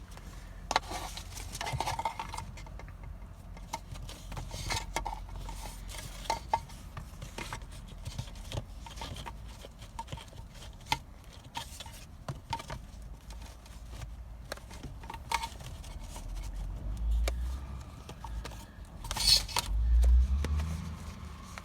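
Scattered light plastic clicks, taps and scrapes from handling a cabin air filter and its plastic housing tray, with a few dull thumps and one louder rustle near the end.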